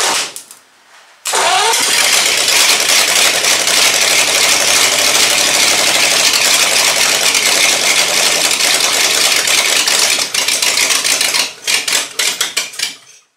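1937 Ford flathead V8 catching about a second in, with a quick rise in revs. It then runs loud, sounding "like a full drag car", for around nine seconds before stuttering and dying near the end. This is the engine's first run after its rebuild.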